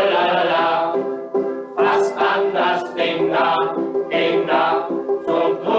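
A group of men singing together with instrumental accompaniment, a lively song that goes on throughout.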